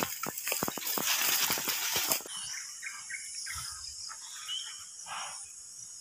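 Crackling and rustling of dry leaves and grass underfoot for about two seconds, then a steady, high insect drone with a few faint scattered sounds beneath it.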